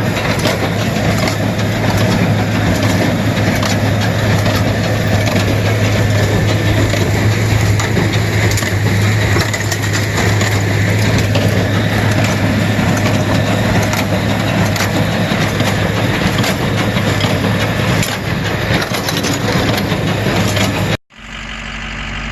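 Tractor pulling a small square baler through straw: a steady engine hum under the baler's dense mechanical noise. It cuts off abruptly near the end, giving way to a quieter engine.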